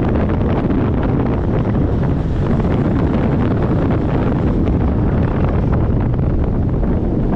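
Strong wind buffeting the microphone in a steady, loud rumble, with big waves surging and breaking on the beach beneath it.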